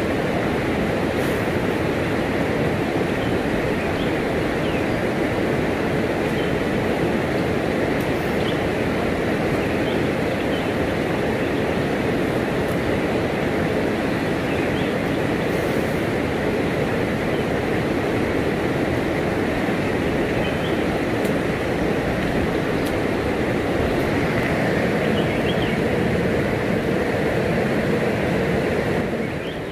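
Steady, unbroken rush of flowing forest water, with a few faint short high chirps over it.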